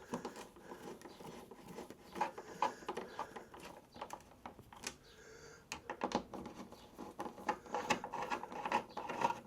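Irregular small clicks, taps and scrapes of Torx T25 screws and a screwdriver being handled and set into the motorcycle's plastic body panels, before they are tightened.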